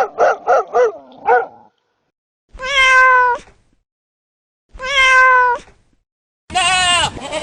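Domestic cat meowing: two long, drawn-out meows about 3 and 5 seconds in, after a quick run of short calls at the start. Another animal's call begins near the end.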